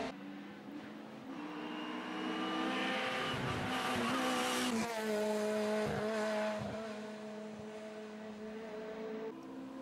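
Honda Integra race car engine revving hard up through the bends. The pitch climbs and then drops sharply at shifts or lifts, and the engine grows louder as the car approaches and passes.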